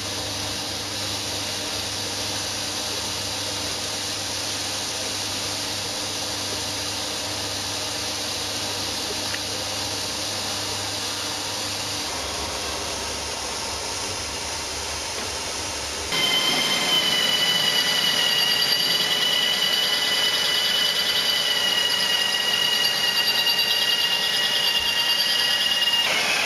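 A steady hiss with a low hum for most of the first two-thirds. Then, suddenly, a louder run of a drill boring into a metal plate, with a steady high-pitched squeal.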